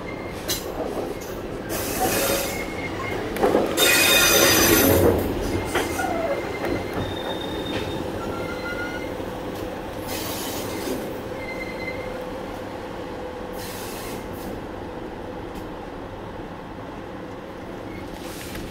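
Siliwangi passenger train running slowly through a tight S-curve, its wheels squealing against the rails in short high-pitched notes over a steady hum and rumble of the carriage. There is a louder rush of noise about four seconds in, and shorter ones later.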